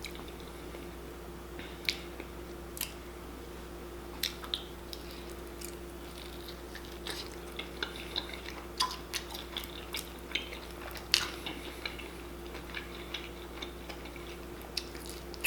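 Close-up eating sounds of chicken wings: scattered wet smacks, bites and chewing clicks, over a steady low room hum.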